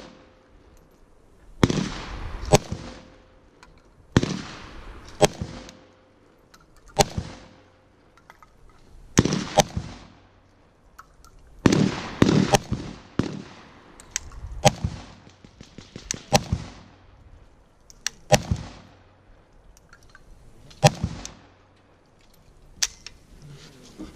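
Century Arms C39 V2 AK-pattern rifle in 7.62×39mm firing single semi-automatic shots at an irregular pace, some in quick pairs and others a couple of seconds apart. Each sharp report is followed by a short echo.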